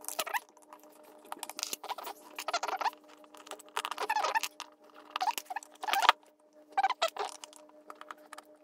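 Small screwdriver clicking and scraping in irregular clusters as small screws are worked out of a Ninebot ES2 battery's plastic casing, with light taps of screws on a wooden table. A faint steady hum lies underneath.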